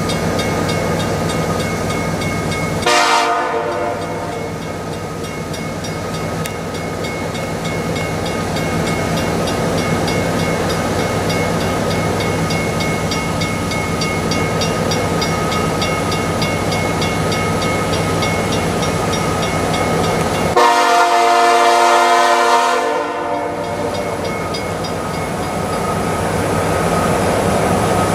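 CN SD70M-2 diesel locomotive with a Nathan K5LLA five-chime air horn: the horn sounds a short blast about three seconds in and a long blast of about two and a half seconds later on, over the steady running of the approaching freight train's EMD 710 V16 diesel engine.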